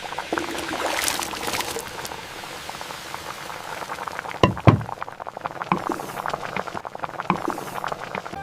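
Liquid bubbling at the boil in a pot, a dense run of small pops and crackles, with a couple of dull knocks about four and a half seconds in.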